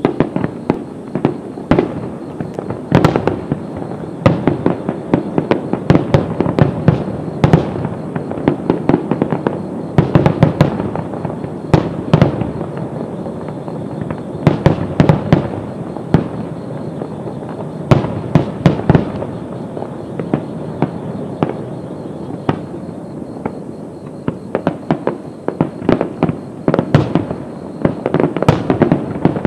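Fireworks display in a rapid-fire barrage: aerial shells bursting in dense, overlapping volleys of sharp bangs, several a second, without a break.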